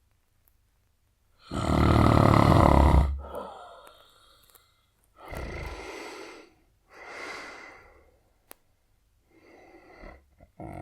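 A man snoring intensely: one loud, long snore about one and a half seconds in, then a run of softer snoring breaths roughly every one and a half to two seconds. A brief click comes between two of the softer breaths.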